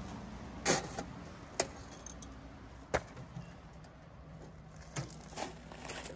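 A handful of sharp clinks and knocks at irregular intervals, like small hard objects or metal gear being handled, over a steady low background.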